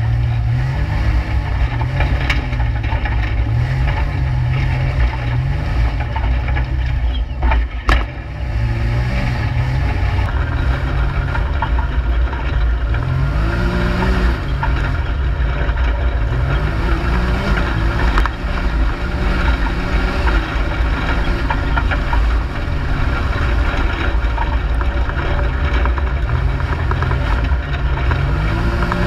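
Can-Am Maverick X3 side-by-side's turbocharged three-cylinder engine being driven hard round a dirt track, its pitch rising and falling over and over as the throttle is opened and let off. A brief knock about eight seconds in.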